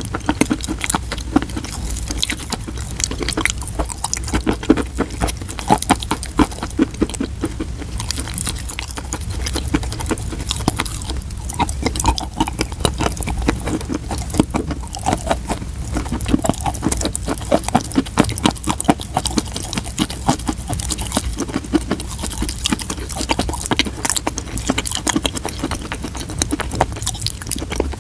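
Close-up crunching and chewing of chalk: a rapid, irregular run of crisp crunches as the chalk is bitten and ground between the teeth.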